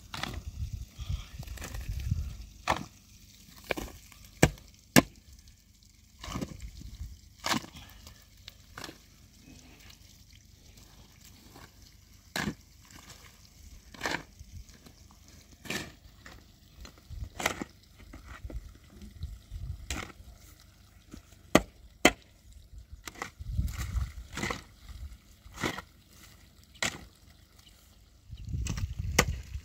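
Wood being chopped: sharp single strikes every second or two, irregular, a few coming in quick pairs.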